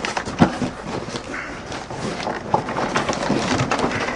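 Packaging being opened by hand: a continuous rustling and scraping of cardboard and wrapping, with many small knocks and clicks.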